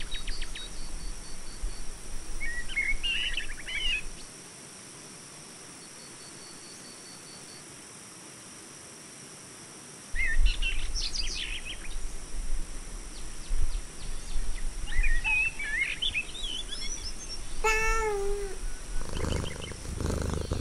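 Birds chirping now and then over a steady background hiss. Near the end comes a single falling cartoon-cat meow.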